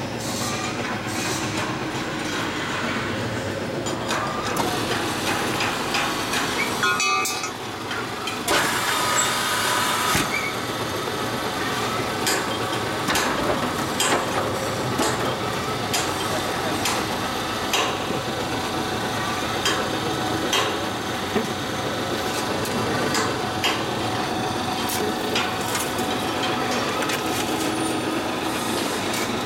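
QMJ4-30 mobile concrete block machine running: steady mechanical noise from its electric motors, with many small knocks and clicks. The noise dips briefly about seven seconds in, then picks up again.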